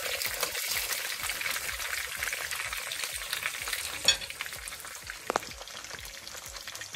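Bammy (cassava flatbread) frying in shallow oil in a pan, with steady sizzling and crackling. A sharp click about four seconds in, and a short clink a second later.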